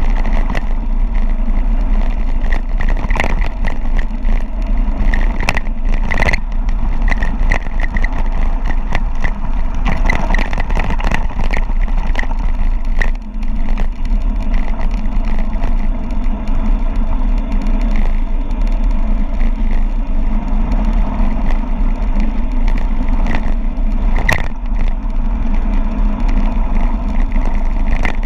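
Wind buffeting the microphone and tyres running over rough ground at speed on a mountain-bike descent, a steady rumbling rush, with the bike clattering in sharp knocks over bumps, clearest about 3, 6 and 24 seconds in.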